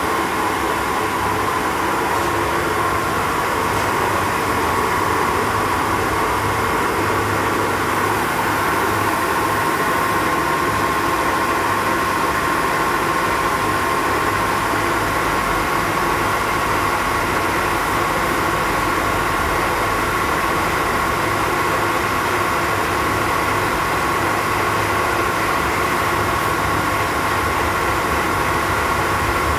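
Lagun FTV-2 CNC milling machine running with its spindle turning: a steady mechanical hum carrying a steady whine.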